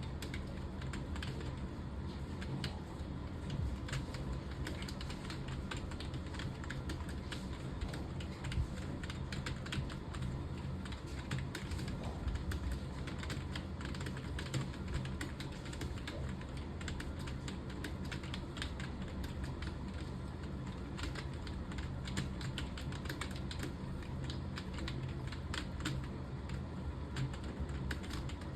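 Fast, continuous typing on a computer keyboard, keys clicking in an irregular stream, over a steady low hum.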